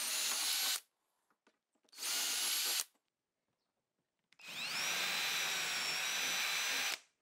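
Cordless drill with a twist bit boring through-holes in wooden bench boards, in three runs: the first stops just under a second in, and the other two start about two and four and a half seconds in. The motor whine rises as it spins up at the start of each run, and the last run goes steadily for about two and a half seconds.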